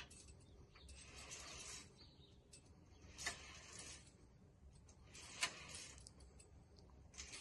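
Retractable ceiling-mounted aluminium drying rack being moved on its mechanism: about four short, faint rasping slides, two of them with a sharp click.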